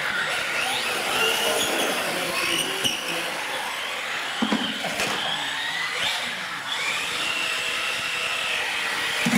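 Several radio-controlled cars racing on a concrete floor, their motors and drivetrains whining, the pitch rising and falling with throttle. A few short knocks are heard as they bump into the course or each other, around three, five and six seconds in.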